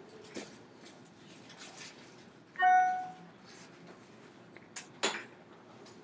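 Faint scattered rustling and clicks, broken about two and a half seconds in by one short ringing tone that fades within half a second. A sharper click comes near the end.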